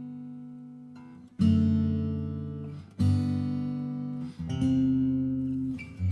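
Background music: sustained chords struck about every one and a half seconds, each ringing out and slowly fading before the next.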